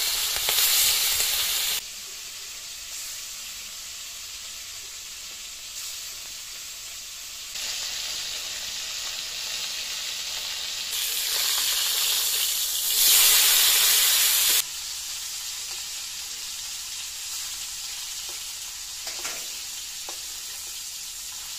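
Pieces of silver cup fish frying in hot oil in a metal kadai, with a steady sizzling hiss whose loudness jumps up and down abruptly a few times. Near the end, a few light clicks of a spatula against the pan as the pieces are turned.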